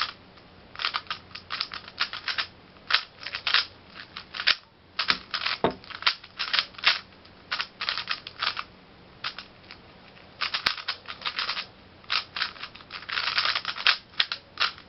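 A 3x3 speedcube being turned fast during a timed solve: rapid runs of plastic clicking turns, broken by short pauses.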